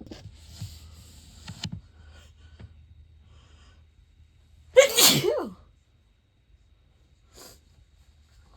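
A person's single loud, natural sneeze about five seconds in: a sharp burst that ends in a voiced cry dropping in pitch.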